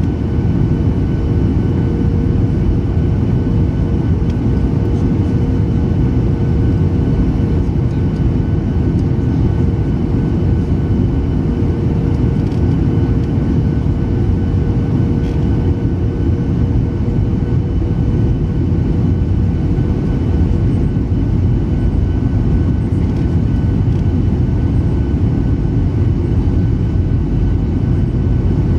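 Steady cabin noise of a Boeing 737-800 airliner in flight on its descent, with engine and airflow noise weighted to the low end. A thin steady hum runs alongside it and fades out about two-thirds of the way through.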